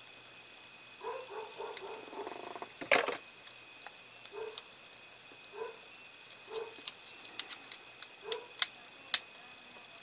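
Small screw being turned into a pre-threaded hole in a plastic model part with a precision screwdriver: short rasping creaks about once a second as the screw turns, with sharp clicks of the driver tip on the screw head, the loudest about three seconds in and several more near the end.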